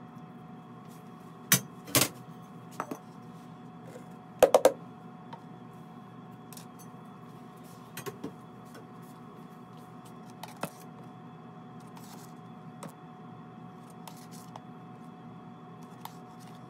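Metal scoop clinking and knocking against a metal bowl and the stainless steel counter while dry glaze powder is scooped. The loudest knocks come in the first five seconds, a pair and then a quick run of three, followed by scattered lighter taps over a steady hum.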